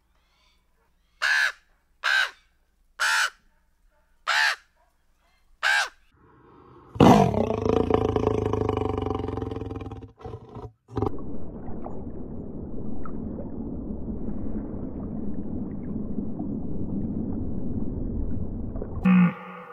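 A crow cawing five times, roughly a second apart. Then, about seven seconds in, a large animal gives a long, low, rough roar that carries on for about twelve seconds, with a brief break partway through.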